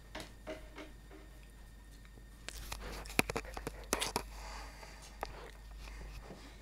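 Soft clicks from a sheltie puppy chewing on a toy, then a couple of seconds of knocks and rustling as the camera is handled, loudest about three seconds in.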